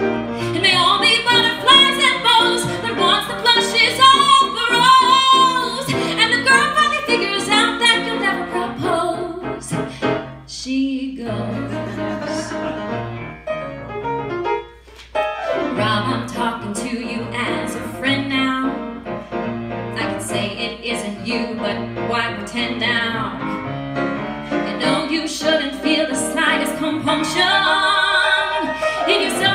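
A woman singing a musical-theatre song to grand piano accompaniment, with held notes that waver in vibrato. The music drops away briefly twice, about 11 and 15 seconds in.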